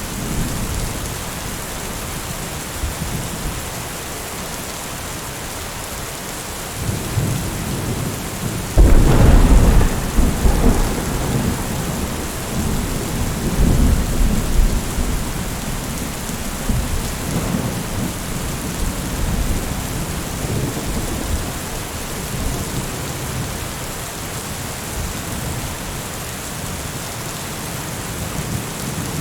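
Thunderstorm: steady heavy rain hissing throughout, with a sudden loud thunderclap about nine seconds in that rolls on as low rumbling for several seconds, and a weaker rumble of thunder a few seconds later.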